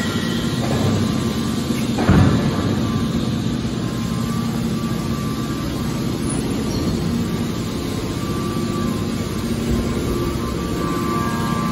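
Hydraulic scrap metal baler running: a steady hum from its hydraulic pump unit, with one heavy clunk about two seconds in.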